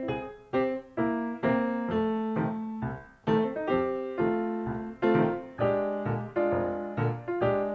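Ragtime solo piano playing a bouncy tune in a steady beat, with struck chords over an alternating bass line.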